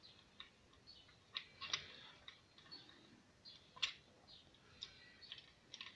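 Faint, irregular small clicks and taps from a Mazda MX-5 roof latch being handled and worked by hand, its plastic and metal parts knocking and catching; the sharpest click comes about four seconds in.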